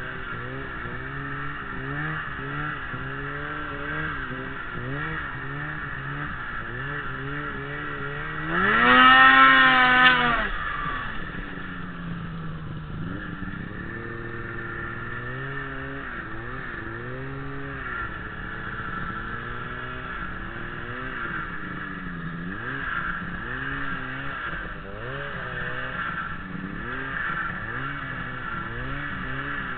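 Ski-Doo Summit 600 SDI snowmobile's two-stroke twin engine under a rider's throttle in deep snow, its pitch rising and falling constantly. About nine seconds in it revs hard, climbing sharply to a loud high note for a couple of seconds before dropping back.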